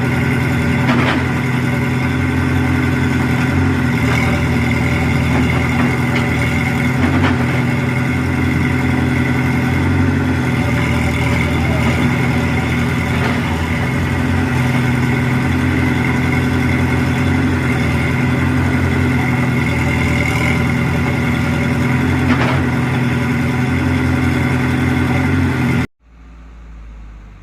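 Heavy construction machine's diesel engine running steadily at a constant pitch, with occasional faint clicks. It cuts off abruptly near the end, leaving only a faint hum.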